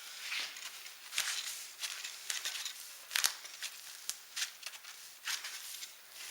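Irregular rustling and scraping with a few sharp clicks: handling noise as a foam pool noodle is pushed into place on a planer board.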